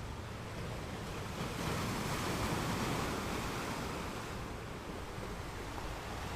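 Ocean surf: a steady rush of waves, with a wave breaking and washing in about a second and a half in, swelling for a couple of seconds, then easing back.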